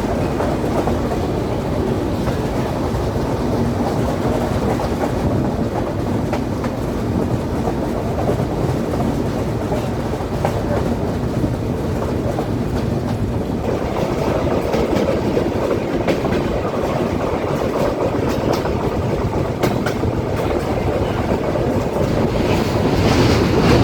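Benapole Express passenger train running at speed: a steady rumble of wheels on the track with faint, regular rail-joint clicks. The sound gets brighter and hissier about halfway through.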